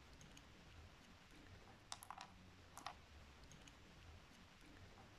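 Near silence with three faint clicks about two to three seconds in, from the metal body of a pin-tumbler lock cylinder being handled during disassembly.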